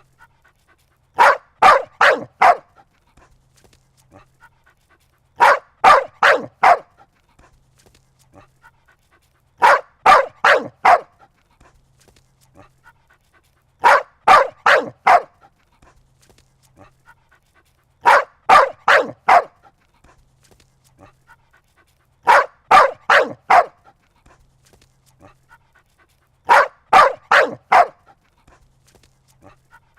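A dog barking in bursts of about four quick barks, the bursts coming every four seconds or so.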